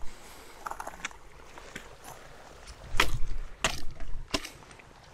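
A stick jabbed into shallow pond water, with three sharp splashes about three seconds in, less than a second apart.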